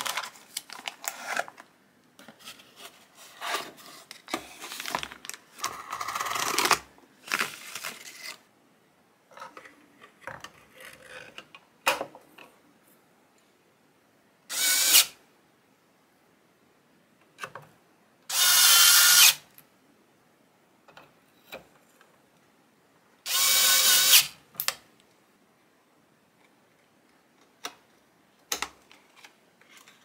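A plastic anti-static bag crinkles and rustles as a circuit board is drawn out of it. Then a cordless electric screwdriver runs three times, about a second each, driving screws that fasten the board into its plastic housing, with small clicks of handling near the end.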